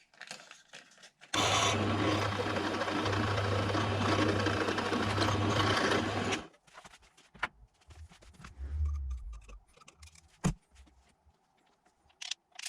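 Electric drill running steadily for about five seconds as it bores through a metal oil-takeoff blanking plate, then stopping. A few light handling knocks and one sharp click follow.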